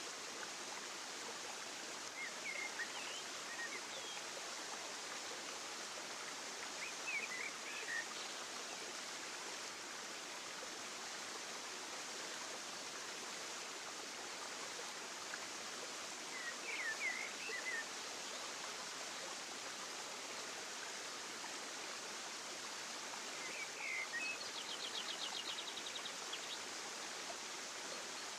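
Outdoor nature ambience: a steady rushing noise, like flowing water, with short bird chirps scattered through it and a quick trill near the end.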